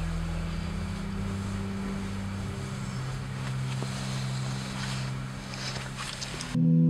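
Steady car-cabin hum of the engine and road noise while driving. Near the end it cuts abruptly to louder ambient music with sustained ringing tones.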